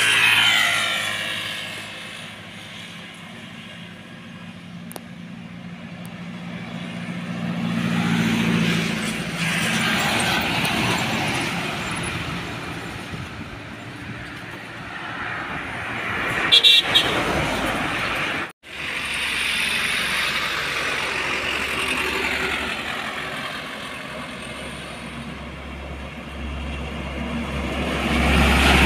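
Trucks passing on a highway one after another, their engine and tyre noise rising and fading as each goes by, with a brief sharp noise about 17 seconds in. Near the end a heavy loaded Hino diesel truck comes close with a deep engine rumble.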